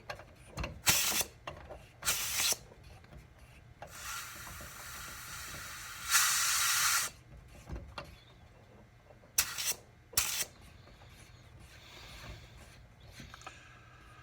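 Compressed air hissing out of a pneumatic airline setup in several short bursts. A longer hiss starts about 4 s in and grows louder around 6 to 7 s, then two more brief bursts come near the end.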